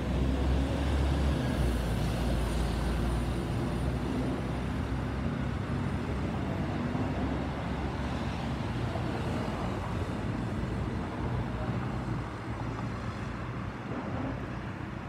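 Distant rumble of an Airbus A321neo's CFM LEAP-1A turbofans as the airliner climbs away, slowly fading, with wind buffeting the microphone.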